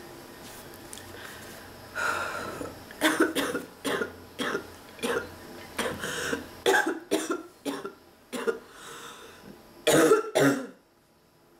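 A man with a respiratory illness coughing in a fit: about a dozen short, harsh, barking coughs in quick succession, the last two the loudest, then stopping.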